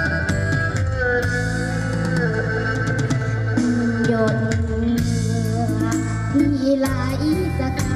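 Music played through a stage PA system during a sound check: backing music with guitar and drums, with a young girl singing into a handheld microphone.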